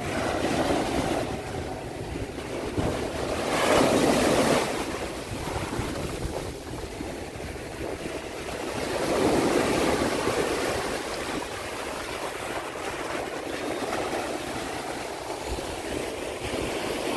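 Small sea waves breaking on a sandy shore and washing up the beach, swelling loudest about four seconds in and again around ten seconds.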